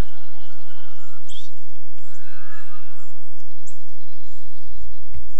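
Wild birds calling: short high chirps repeated every second or so, and a couple of lower, harsher calls in the first half, over a steady low rumble.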